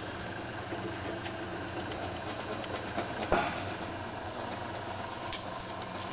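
Air-Vac PCBRM15 solder pot's wave pump running steadily, a continuous machine hum with a hiss of noise. A single sharp knock sounds about three seconds in.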